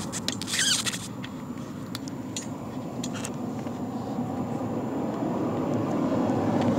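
Brief rustling and a few light clicks as hands work at plastic parts under a truck's dashboard, over a steady low rumble that grows slightly louder.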